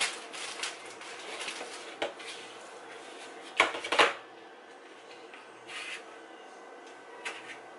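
Frozen banana pieces being picked out of a plastic ice cube tray and put into a plastic sandwich bag: plastic rustling and light clicks, with two sharp knocks a little after three and a half seconds in.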